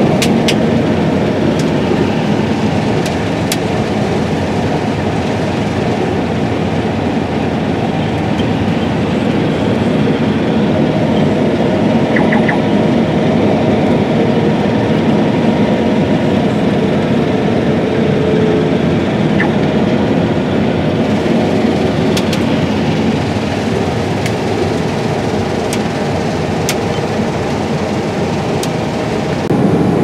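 New Holland CR8090 twin-rotor combine running steadily under harvesting load, its engine and threshing machinery heard from inside the cab as it cuts soybeans.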